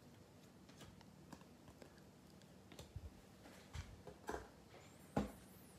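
Hands handling trading cards and reaching for a cardboard mega box: faint, scattered taps and clicks, a few louder ones in the second half.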